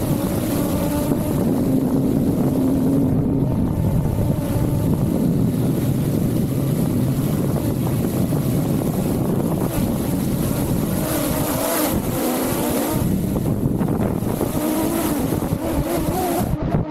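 Quadcopter drone's electric motors and propellers running in flight, a steady hum whose pitch wavers slightly, heard from a camera mounted just below the rotors, with wind noise on the microphone.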